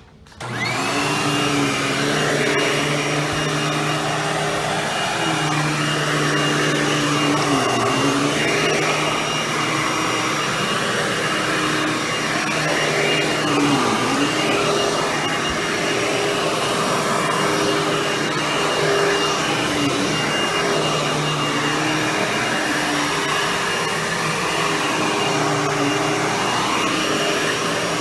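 Hoover WindTunnel Anniversary Edition bagless upright vacuum switched on, its motor whine rising as it spins up, then running steadily. It is pushed over carpet, its tone dipping briefly now and then.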